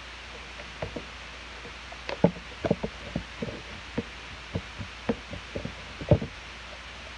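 Homemade slime being squeezed and kneaded by hand, giving a string of irregular sharp pops and clicks as air bubbles in it burst. Most of the pops come from about two seconds in.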